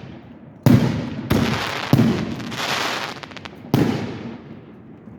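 Aerial fireworks bursting overhead: four sharp bangs, each followed by a fading rumble, with a brief run of crackling just before the last bang.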